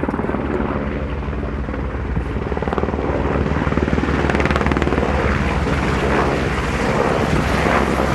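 Military helicopter flying low and close by, its rotor blades chopping rapidly; it gets louder about halfway through.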